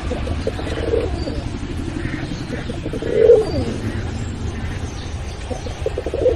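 Domestic pigeons cooing: three rolling coos a couple of seconds apart, the loudest about three seconds in.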